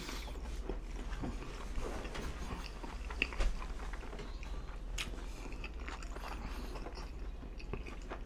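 Close-miked chewing of a mouthful of pizza: soft, wet mouth clicks and crust crunches, a few of them sharper about three and five seconds in.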